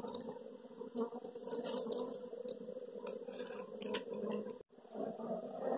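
A dense cluster of honeybees buzzing close to the microphone, a steady hum with scattered clicks from handling; the sound breaks off briefly near the end.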